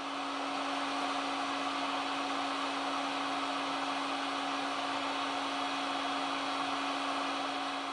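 Hot air rework gun blowing steadily: an even rushing hiss with a constant low hum underneath.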